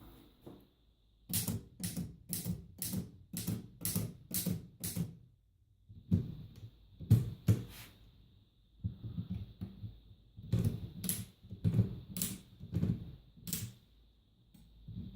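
Smith Premier No. 2 antique typewriter being typed on: separate sharp key strikes at roughly two a second, in three runs with short pauses between them.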